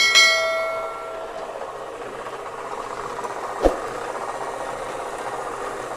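Metal-cutting bandsaw running steadily while cutting steel bar stock. It opens with a sharp metallic strike that rings and dies away over about a second, and a single knock comes a little past halfway.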